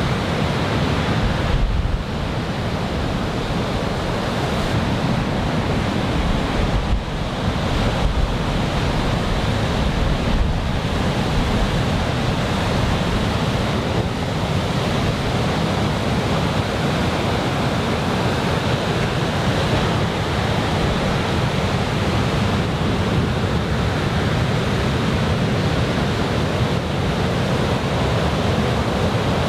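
Ocean surf: a steady wash of breaking waves from a typhoon swell, with some wind buffeting the microphone.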